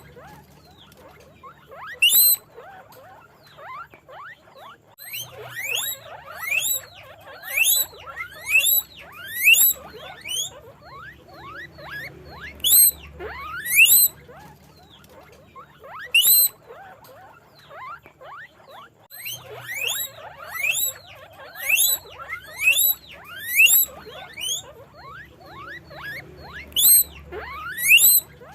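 Guinea pig wheeking: repeated high squeaks, each rising sharply in pitch, coming in runs of several with short pauses between.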